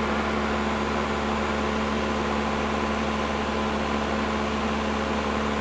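Cessna 172's engine and propeller droning steadily in flight, heard inside the cabin, with a steady low hum running through it.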